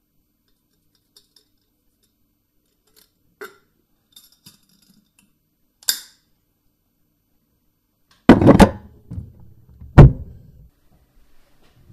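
A few faint rustles and small clicks, then two loud heavy impacts about a second and a half apart. The first is a crash of several strokes with a rattling tail; the second is a single hard thud that rings on.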